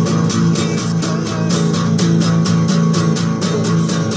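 Guitar music from a song demo, strummed in a steady, quick rhythm.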